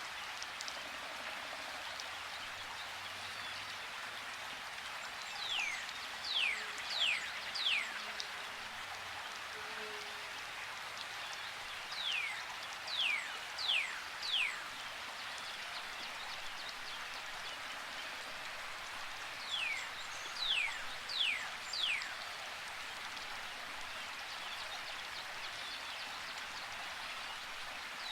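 A river rushing steadily, with a songbird singing over it. The song is a phrase of about four clear whistled notes, each falling in pitch, and it comes three times, roughly every seven seconds.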